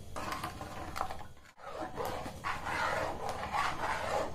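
A steel spoon stirring and scraping a thin batter of ground moong dal, sugar and water around a steel kadhai, in short repeated strokes. The stirring is kept up without a break so the paste doesn't settle and stick on the bottom. The sound briefly cuts out about a second and a half in.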